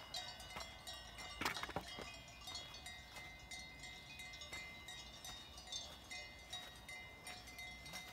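Bells on a grazing flock of sheep clinking irregularly, many short ringing tones overlapping, with a couple of sharper knocks about a second and a half in.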